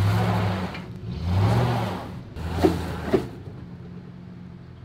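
Two-wheel-drive pickup truck's engine revving up twice with a rushing hiss, then settling back to a quieter idle; two short knocks come about two and a half and three seconds in.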